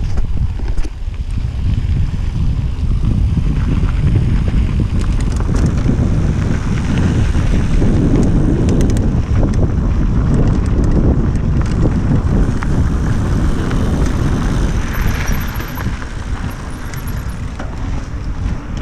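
Wind rumbling on an action camera's microphone as a mountain bike rolls along a gravel path, with tyre noise and scattered clicks and rattles from the bike. The noise eases a little near the end.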